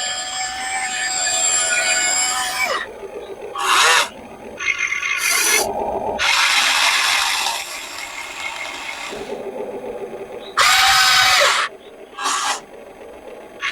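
Small electric motors of a radio-controlled model excavator whirring. A steady whine for the first few seconds cuts off sharply, followed by about five separate short bursts as the machine's functions are worked in turn.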